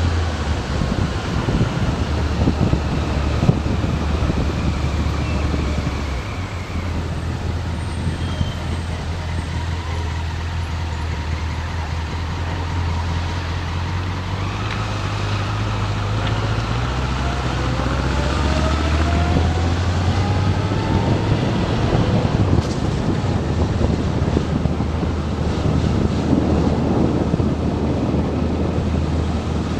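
Motorcycle engine running at low town speed, heard from a camera mounted on the bike, with wind rushing over the microphone. Its low note shifts a few times, and near the middle there are rising notes as it speeds up.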